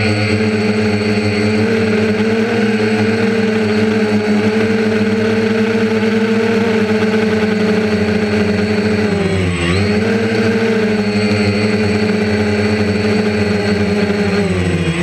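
DJI Phantom quadcopter's motors and propellers buzzing steadily and loud, heard from a camera mounted on the drone itself. The pitch dips briefly and recovers about two-thirds of the way through, and starts to drop again at the very end.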